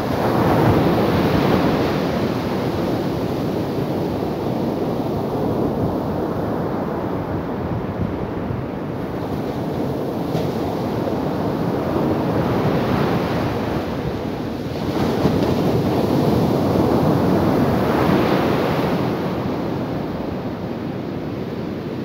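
Ocean surf breaking on a sandy beach: a continuous rushing wash of waves that swells each time a breaker comes in, loudest just after the start and again for a few seconds past the middle.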